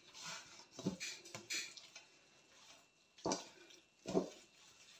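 Wooden spoon mixing a wet mashed-potato and tuna mixture in a stainless steel bowl: irregular soft squelches and scrapes, with a few louder ones.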